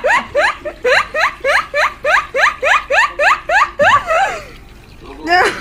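Squeaky duck-bill dog toys worn over the dogs' muzzles, sounding a rapid run of short rising quacks, about four a second, breaking off for a second just before the end and starting again.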